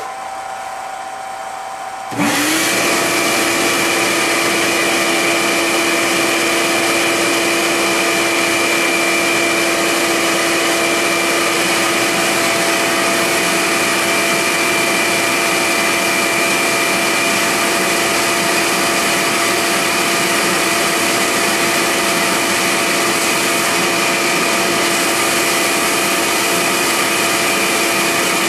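A CNC-converted Central Machinery milling machine starts running. About two seconds in, a vacuum switches on, spinning up briefly and then running steadily and loudly with the mill, sucking up graphite dust at the cutter as the mold is cut.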